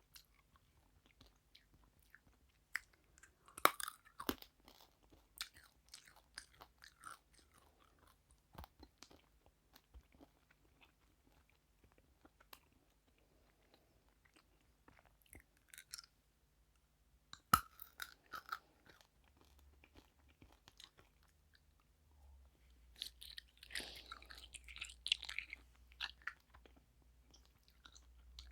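Bites and chewing of crunchy food: sharp cracks from bites about four seconds in and again a little past halfway (the loudest), with scattered smaller crunches between, then a run of crackly crunching near the end.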